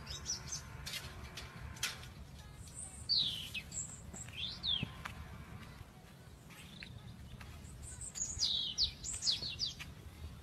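Small birds chirping in short, high calls that slide down or up in pitch, in clusters about three seconds in, near five seconds, and again from about eight to nine and a half seconds. Under them is a low steady rumble with a few light clicks.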